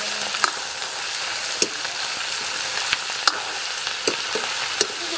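Chicken pieces sizzling in hot oil in a metal karahi, stirred with a metal ladle that knocks and scrapes against the pan in sharp clicks every second or so.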